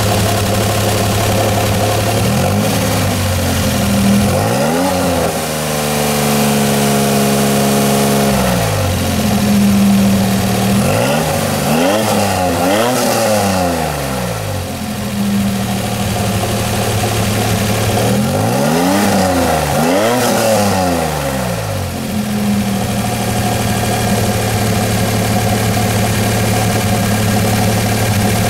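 DeLorean DMC-12's PRV V6 with Stage-2 upgrade and custom electronic fuel injection idling and being revved: a few quick blips of the throttle in three groups, one rev held at a raised speed for a few seconds, then settling back to a steady idle for the last several seconds.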